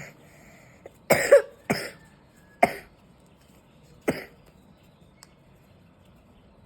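A person coughing, about four short coughs spread over a few seconds, from someone who is unwell.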